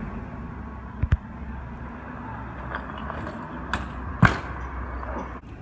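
BMX bike knocking and clattering against brick paving and a wall ledge: two short knocks about a second in, then sharper impacts with the loudest about four seconds in. A steady traffic hum runs underneath.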